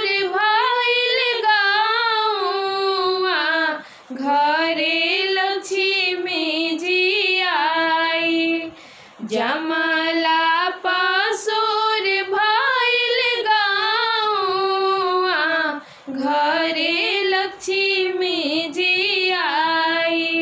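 Two women singing a Bhojpuri kanyadan geet, a folk wedding song for the giving-away of the bride, together in unison without instruments. The melody runs in long phrases, with short breaths about 4, 9 and 16 seconds in.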